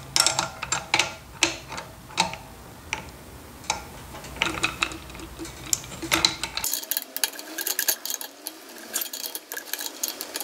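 Steel spanners clicking and clinking on a shock absorber's top nut as it is turned down with a 17 mm ring spanner and an adjustable spanner. The clicks come in ones and twos at first, then faster and closer together for the last few seconds.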